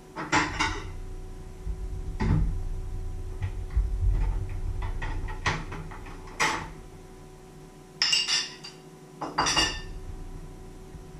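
A ceramic plate and a metal spoon clinking as they are handled and set down: a handful of sharp clinks, each with a short ring, the loudest cluster about eight to ten seconds in.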